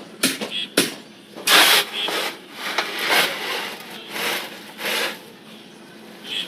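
Shovel scraping and turning cement mortar, a series of rasping strokes about one a second, after a couple of sharp clicks.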